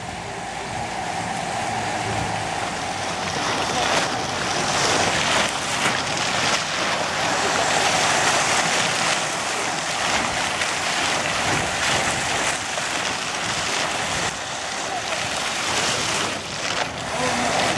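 Fountain water jets spraying upward and splashing back into a shallow pool: a steady hiss and wash of falling water.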